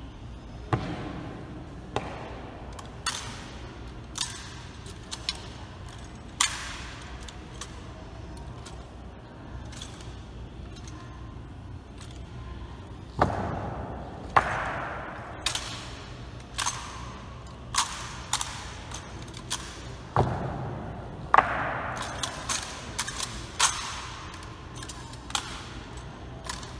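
Honor guard's rifle drill: a series of sharp clacks and knocks from hands slapping the rifles and rifle butts and boot heels striking the floor, irregularly spaced and coming in quick flurries in the middle and near the end, each ringing briefly in the large stone hall.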